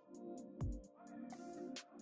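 Background electronic music with a beat: quick hi-hat ticks and a deep kick that drops in pitch about half a second in, over steady held notes.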